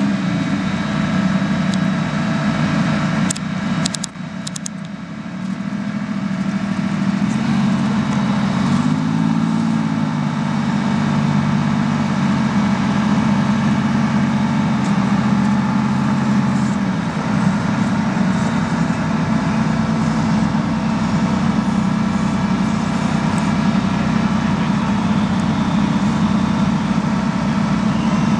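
Armored military vehicle diesel engines running close by, the sound of an eight-wheeled light armored vehicle (LAV) with its engine near idle. About eight to ten seconds in, an engine revs up and settles back down.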